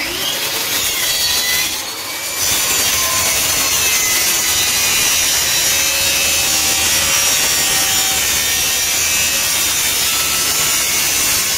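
WEN CT1065 plunge-cut track saw running and cutting through a board as it is pushed along its guide rail, a steady high saw whine with a brief dip in loudness about two seconds in.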